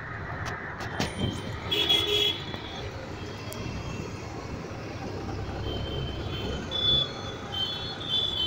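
Street traffic heard from inside a moving auto-rickshaw: the rickshaw's engine and road noise run steadily under vehicle horns, a burst of toots about two seconds in and several more short toots from about six seconds on.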